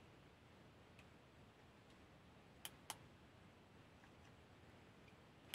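Near silence broken by soft clicks of a keychain flashlight's push button, a quick pair about two and a half seconds in, as the light switches from its red mode to bright white.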